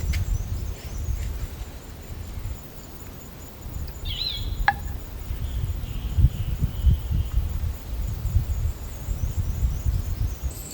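Outdoor ambience: an uneven low rumble, a short bird call about four seconds in, and faint insect chirping.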